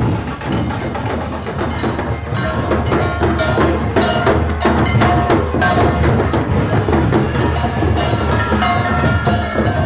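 Music driven by dhol drumming: a fast, steady rhythm of drum strokes with a deep bass beat, and a melody over it.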